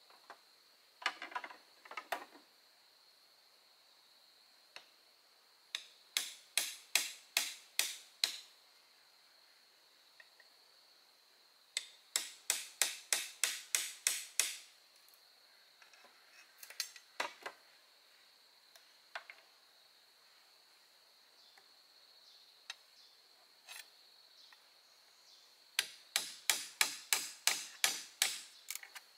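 Hammering: three quick runs of sharp hammer blows, about four a second and eight to eleven blows each, with a few single knocks between the runs. A steady thin high-pitched tone sits underneath.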